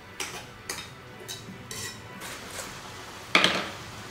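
Metal kitchen utensils and cookware clinking: about six light, ringing clinks over the first three seconds, then a louder clatter a little past three seconds in.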